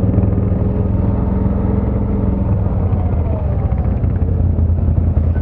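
ATV (quad) engine running at a steady pitch, with a faint second engine note sliding down in pitch about three seconds in.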